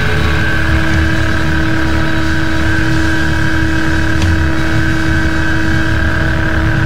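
Live band playing a loud, droning passage: an electric guitar holds a steady note over a low rumble from the drums, with a single cymbal hit about four seconds in.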